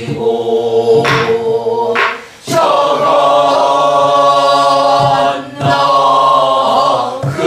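A group of voices singing a Namdo folk song together in long, held notes, in two phrases with short breaks between them. A few sharp strokes, from the buk barrel drum keeping time, fall in the breaks.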